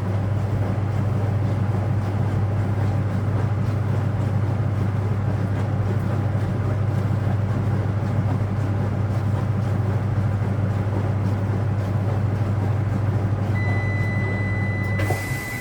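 Speed Queen top-loading washing machine running its final spin with a steady low motor hum, which cuts off abruptly near the end as the tub brakes to a dead stop. A steady high-pitched electronic beep starts shortly before the motor stops.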